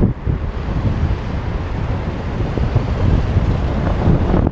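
Wind buffeting the microphone of a GoPro on a moving bicycle: a steady, loud low rumble that flutters irregularly.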